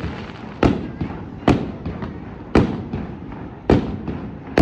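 Aerial firework shells bursting in a steady sequence, one sharp bang about every second, five in all, each with an echoing tail and smaller pops and crackles in between.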